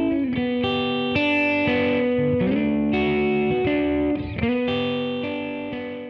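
Outro music: guitar chords that change every second or so, fading out near the end.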